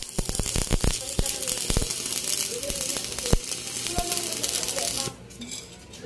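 Stick-welding arc from a homemade microwave-oven-transformer welder, crackling and sizzling as the electrode burns, with sharp pops in the first second. The arc breaks off about five seconds in.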